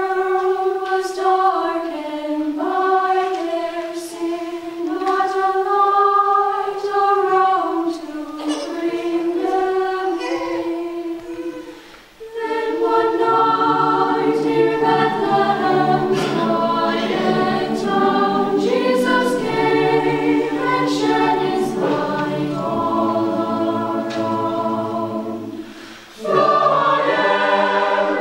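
Mixed choir singing unaccompanied: a single melody line in high voices for about the first twelve seconds, then, after a short break, the full choir enters with low voices in several-part harmony, with another brief pause near the end.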